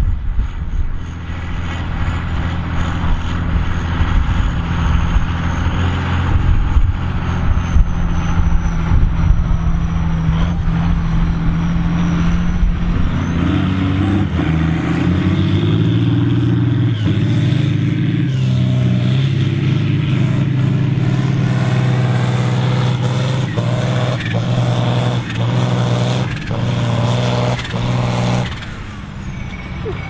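Diesel tractor engines working hard under load as they pull ploughs through stubble: first a Volvo BM tractor, then, from about halfway, a John Deere tractor passing close with a deeper, steady engine note while blowing black exhaust smoke at full load.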